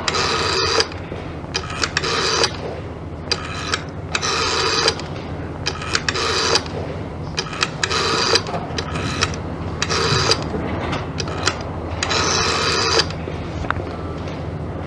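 Electromechanical telephone exchange switching gear clattering in a string of short bursts, each under a second and coming every second or two, over a steady low hum: the selectors stepping through the dialled digits replayed to trace the caller's number.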